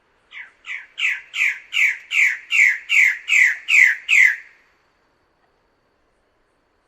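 Bird-of-paradise calling: a series of about ten downward-sliding notes, roughly two and a half a second, growing louder as it goes and stopping about four and a half seconds in.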